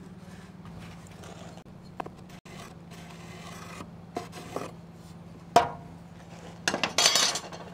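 Handling noises at a miter saw that is switched off: light clicks and knocks of a metal speed square on the saw's metal table, a sharp knock about five and a half seconds in, then a short scraping clatter near the end as a wooden deck board is laid and slid on the saw, over a low steady hum.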